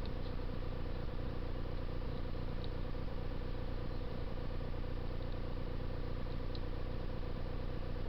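A steady low hum with hiss, and a few faint, short high chirps from Eurasian tree sparrows at the feeder.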